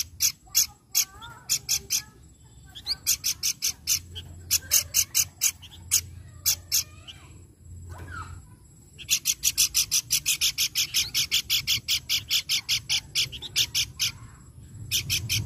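Caged babbler (pelanduk bukit) calling: bursts of short, sharp, high chirps, then a fast steady run of about five or six a second lasting several seconds, with a few softer whistled notes between.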